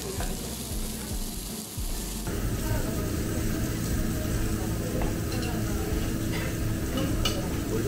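Thick-cut pork belly sizzling on a ridged grill plate over a gas burner, a steady hiss of frying fat. A steady low hum joins about two seconds in.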